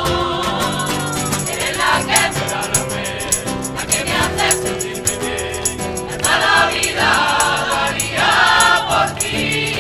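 Choir singing a song over a steady percussion beat.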